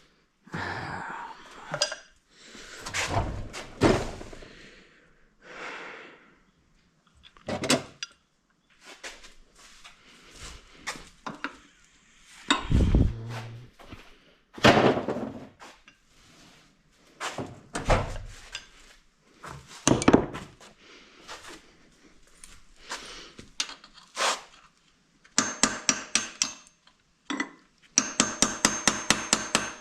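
Metal hand tools knocking, scraping and clinking while working at a seized, chewed-up bolt on a quad that will not budge, with a run of rapid, even clicks near the end.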